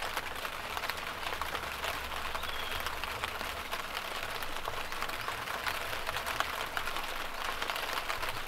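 Steady rain pattering, heard from inside a camper van.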